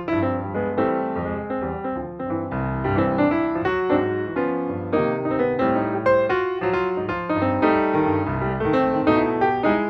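Solo piano music playing a flowing melody over chords, with notes struck several times a second.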